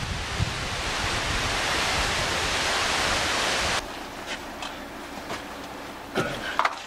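Steady rushing roar of a waterfall mixed with wind on the microphone, cutting off suddenly about four seconds in. After that it is quieter, with a few light knocks near the end.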